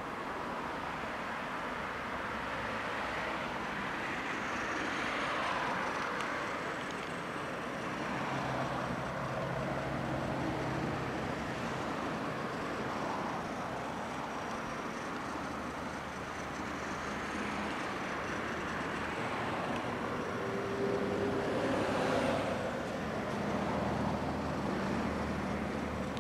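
Battery-powered toy train running along its track: a steady mechanical whir that swells slightly a couple of times.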